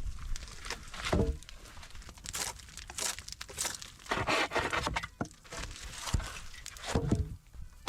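Firewood logs being handled: irregular knocks of wood on wood with rustling and crunching in between, about a dozen sharp knocks, the loudest about a second in and near the end.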